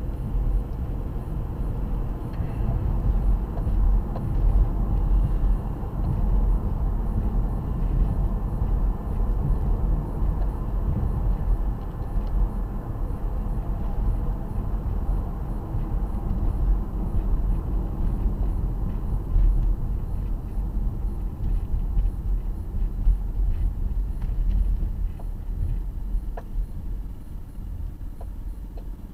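Road and engine noise of a moving car heard from inside its cabin: a steady low rumble of tyres and engine that eases off over the last few seconds as the car slows.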